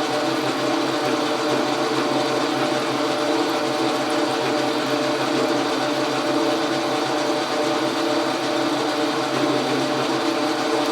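Logan metal lathe running steadily through a long cut, its motor and gearing giving an even hum with several steady tones.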